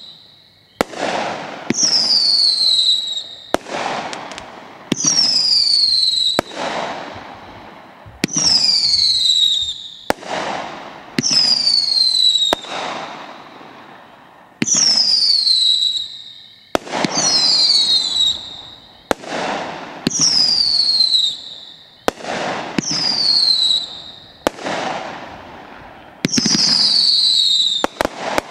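The 'A Taste Of Heat' 500-gram fireworks cake firing shot after shot, about one every two seconds. Each shot is a sharp crack followed by a whistle that falls in pitch over a second or two.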